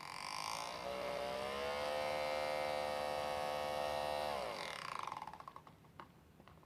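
Washing machine motor turning the drum: a whine that rises as it spins up, runs steadily for a few seconds, then winds down and stops. A couple of light clicks follow near the end.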